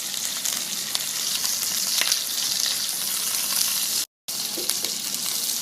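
Small wild birds frying in their own rendered fat in a small frying pan, with no oil added: a steady sizzle full of fine crackles. The sound cuts out completely for a moment about four seconds in, then carries on.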